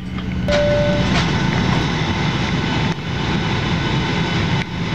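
Cabin noise of a Boeing 737-700 taxiing, its jet engines running with a steady, even rush. A short steady beep sounds about half a second in.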